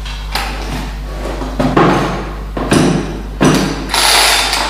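Recoil starter of a Zomax ZM 4620 chainsaw, a plain pull starter with no easy-start system, pulled by hand several times. Each pull is a short rasping zip of the cord, the last one the longest, and the engine does not start.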